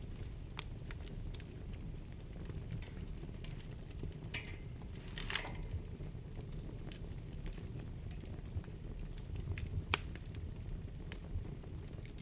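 Wood fire burning in a fireplace: a low steady roar of flames with irregular sharp crackles and pops, a short hissing flare about five seconds in, and a louder pop near the end.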